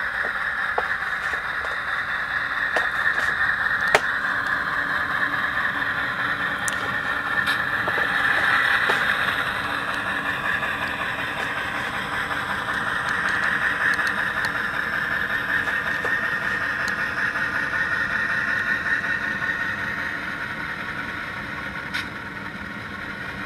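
Model locomotive's Tsunami sound decoder playing an ALCO diesel engine sound through its small onboard speaker as the locomotive runs along the track. The engine sound swells a third of the way in and again around the middle, then eases off near the end, with a couple of sharp clicks from the running gear on the rails.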